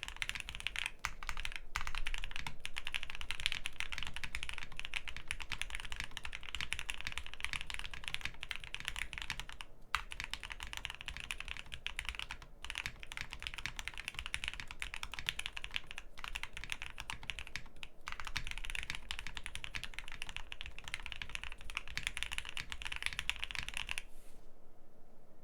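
Fast, continuous typing on a Jelly Epoch 75% custom mechanical keyboard with OP Black switches, a polycarbonate plate, ePBT keycaps and no dampening, the keystrokes running together. There are a few short pauses, and the typing stops near the end.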